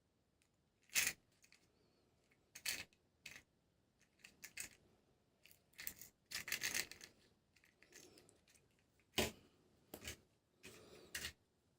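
Toy packaging being opened and handled: a string of short, irregular rustles, scrapes and clicks, the sharpest about a second in and again near nine seconds.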